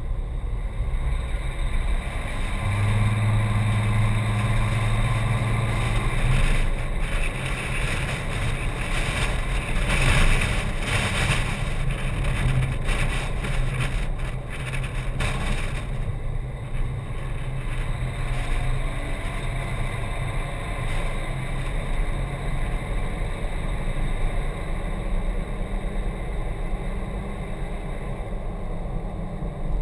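Vehicle engine running with road and air noise as it drives along, picked up by a camera mounted on its hood. A steady engine hum stands out from about three to six seconds in, and a louder rushing noise runs through the middle.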